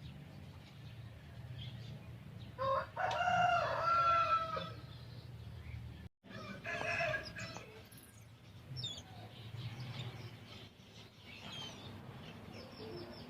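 A bird's loud, drawn-out call about three seconds in, lasting nearly two seconds, then a shorter call around seven seconds, with fainter calls after it over a low steady hum.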